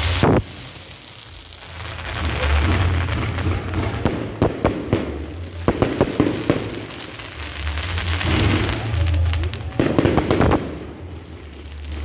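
Aerial fireworks bursting overhead: a loud bang right at the start, then clusters of sharp bangs and crackling about four, six and ten seconds in.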